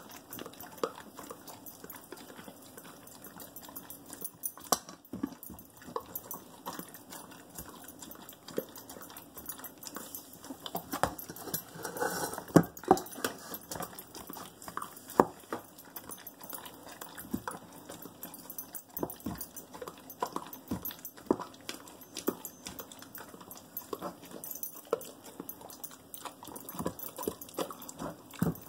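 A dog eating dry kibble from a bowl: irregular crunching and sharp clicks of teeth and food against the bowl, getting louder and busier about twelve seconds in.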